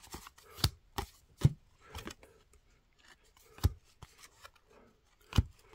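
Cardboard baseball cards being thumbed off a handheld stack one at a time: about seven short, sharp snaps and slides of card stock at uneven intervals, with faint rubbing between them.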